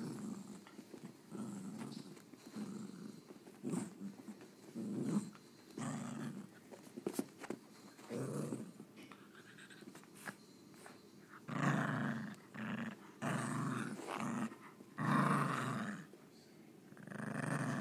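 Maltese dog play-growling in a run of short growls, which grow longer and louder in the second half.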